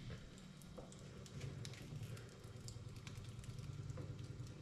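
Faint low steady hum that grows a little stronger about a second and a half in, with scattered light clicks and rustles.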